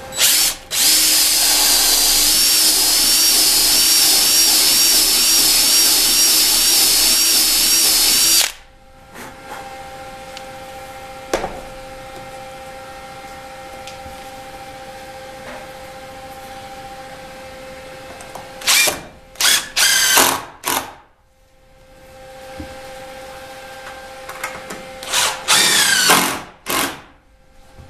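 Power drill with a countersink bit boring into a wooden rail. It runs once for about eight seconds with a slightly wavering pitch. Later come two clusters of short, quick bursts, with a faint steady hum underneath.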